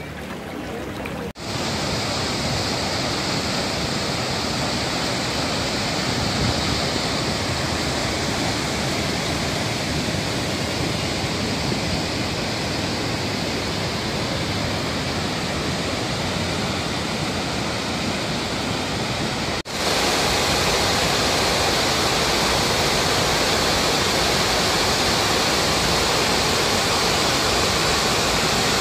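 Floodwater pouring over a weir and spillway, a steady, dense rushing of water. There are two brief breaks, about a second in and about two-thirds of the way through, and it is slightly louder after the second.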